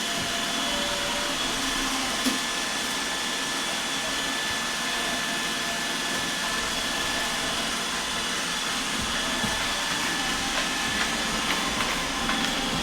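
iRobot Roomba 805 robot vacuum running steadily: an even motor-and-brush noise with a steady whine, and a few short clicks or knocks, more of them near the end.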